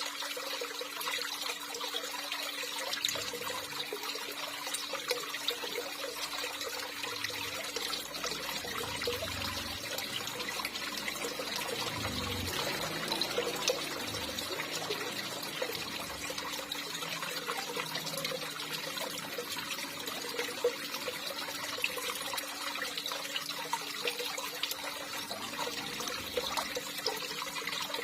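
Running water trickling and pouring steadily, a continuous even splashing with no let-up.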